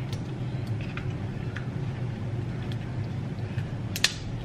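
Scattered small clicks and cracks of snow crab shell being broken and picked apart while eating, with one sharper crack about four seconds in, over a steady low hum.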